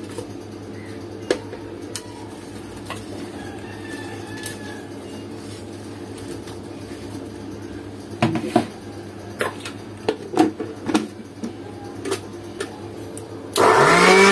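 Watermelon chunks dropped into a plastic blender jar, with scattered soft knocks and clatters over a steady low hum. Near the end the blender motor switches on, rising in pitch as it spins up, and runs loud.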